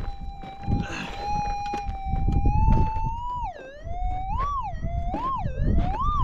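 Gold prospecting metal detector's steady threshold hum through its speaker; about three seconds in the tone starts swooping up and down in three rising swells as the coil sweeps over the dug hole, the target signal of buried metal still in the ground, getting louder. Wind rumbles on the microphone, with a few knocks of a pick in the stony dirt in the first second.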